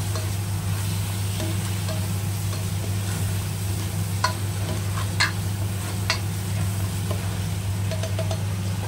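Tomato and onion masala sizzling in oil in a nonstick pan as a spatula stirs it, with a few sharp taps and scrapes of the spatula on the pan a little past the middle. A steady low hum runs underneath.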